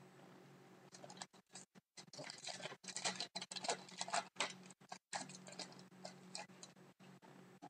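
Hockey trading cards being handled and flipped through, giving a quick run of light crinkles and clicks that starts about a second in and fades near the end.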